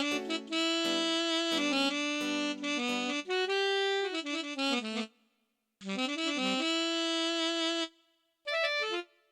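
Roland XPS-series keyboard playing a single melodic lead line with a reedy, wind-instrument-like patch, in phrases of held and stepping notes. There are two short breaks, about five and eight seconds in, and a last short phrase cuts off just before the end.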